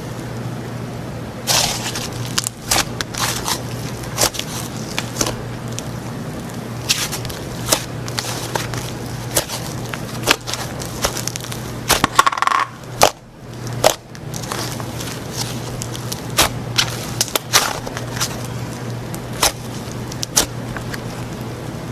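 Slime being squished and worked by hand, with irregular sharp clicks and crackles over a steady low hum.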